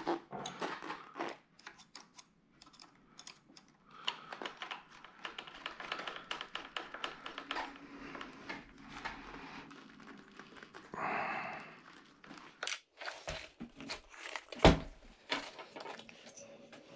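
Hands working on an RC truck's steering assembly with small tools and screws: scattered light clicks, taps and rustling, with one sharp knock a little past three-quarters of the way through.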